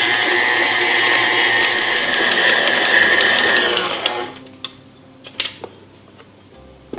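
Stand mixer's motor running with a steady whine while its dough hook kneads a stiff rye sourdough dough. The motor winds down and stops about four seconds in, followed by a few light clicks and knocks.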